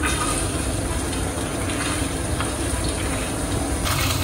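Coconut pieces frying in hot oil in an uruli: a steady sizzling hiss.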